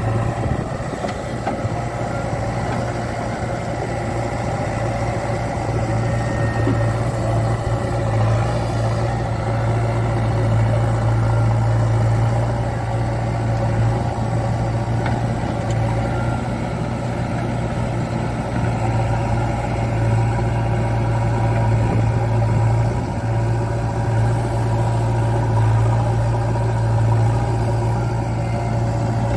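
JCB 3DX backhoe loader's diesel engine running steadily as the backhoe digs and dumps mud, swelling a little as it takes the load.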